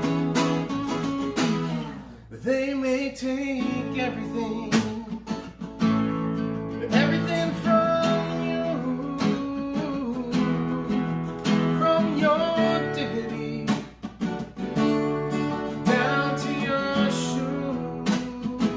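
Acoustic guitar strummed in a steady rhythm, with a voice singing at times: a live acoustic duo performing a song.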